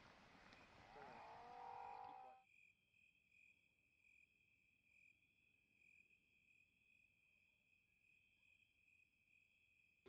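Near silence with a faint, steady insect chorus trilling high and pulsing slightly. A brief faint pitched sound comes in the first two seconds.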